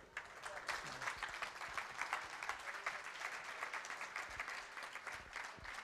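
Audience applause: a crowd clapping steadily, dying down near the end.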